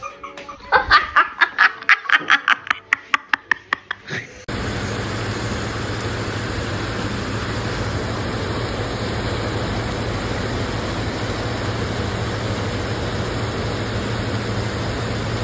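A person laughing hard in quick, loud bursts for about four seconds. Then the sound cuts suddenly to a steady rushing noise with a low hum, which continues unchanged.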